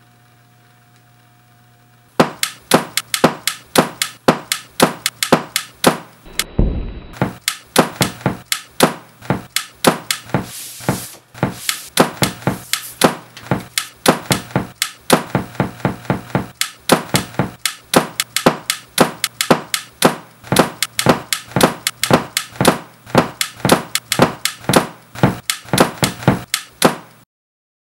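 Record played back through hi-fi speakers: after a faint hum, a fast, uneven run of sharp knocks and claps, about two to three a second, starting about two seconds in. The sound cuts off abruptly near the end as the amplifier is switched off.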